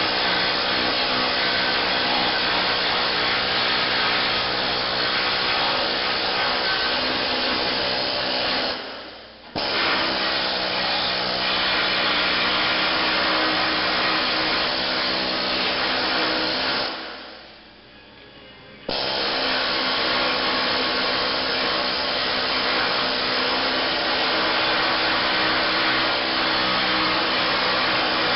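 Loud air-powered needle scaler running steadily, its needles hammering old undercoating off the steel floor pan of a 1966 VW Beetle. It stops twice, briefly about nine seconds in and for about two seconds near seventeen seconds in, and starts again suddenly each time.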